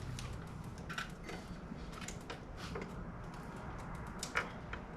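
A few scattered light clicks and clinks of tools and hardware being handled, spaced a second or more apart, over a low steady hum.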